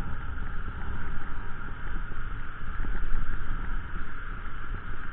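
Motorcycle riding over a rough dirt track: the engine running under a heavy, uneven rumble of wind buffeting the microphone.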